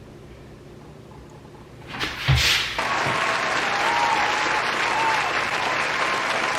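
A quiet stretch, then about two seconds in a short thump and a crowd breaking into applause that carries on steadily.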